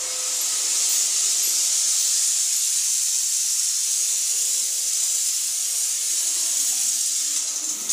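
A steady, loud, high-pitched hiss that holds evenly throughout.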